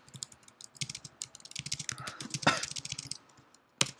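Typing on a computer keyboard: a run of irregular keystroke clicks, then a gap of about half a second near the end and one sharper click.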